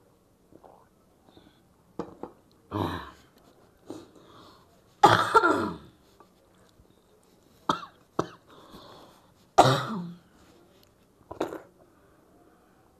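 A woman coughing and clearing her throat several times in short, separate bursts. The loudest comes about five seconds in, another near ten seconds.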